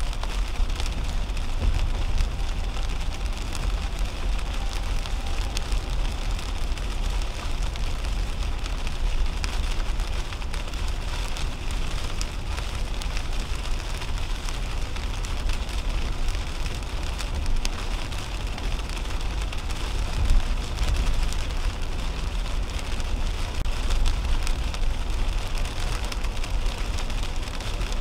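Inside the cabin of a 2010 Toyota Camry at highway speed in heavy rain: steady road and tyre noise on wet pavement, with rain hitting the windshield.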